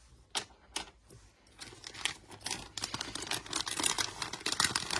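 Two sharp clicks, then a busy run of small clicks and rustling from about a second and a half in: hands handling a doll's small accessories and their plastic packaging.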